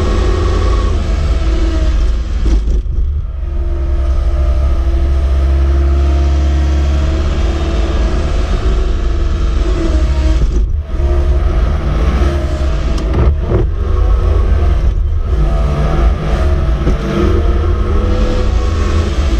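Cat skid steer's diesel engine running hard while plowing snow, its pitch shifting with the throttle and dropping away briefly several times.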